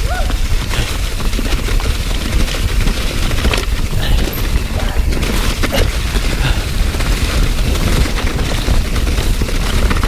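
Mountain bike descending a steep, rocky trail under wet leaves, heard on a point-of-view action camera: constant low wind buffeting on the microphone, with a dense clatter of knocks and rattles as the bike runs over rocks and leaves.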